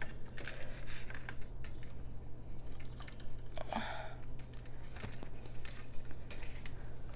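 Handling noise from a phone camera being moved and repositioned: scattered clicks, knocks and rustles, with a steady low hum underneath.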